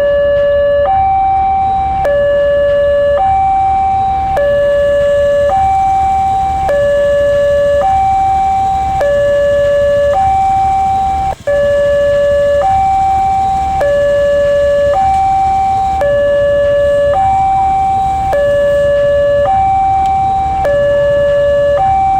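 Railway level-crossing warning alarm sounding its two-tone signal: a lower and a higher tone alternate steadily, each held about a second, over a low rumble.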